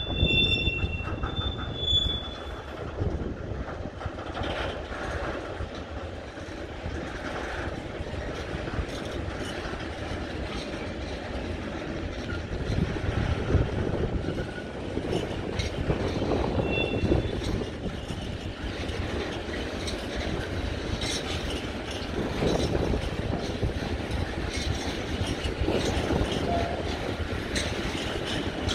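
Freight train of tank wagons rolling past: a steady rumble of wagon wheels on the rails, with brief high-pitched wheel squeals near the start and again about halfway through.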